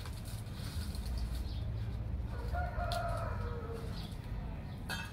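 A rooster crowing once, about two and a half seconds in: one long held call that drops in pitch at the end.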